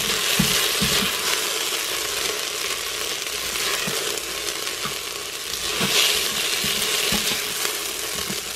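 Diced onions sizzling in hot oil in a stainless steel Instant Pot inner pot, cooked soft and ready. A silicone spatula scrapes and taps against the pot as the onions are pushed together and scooped out.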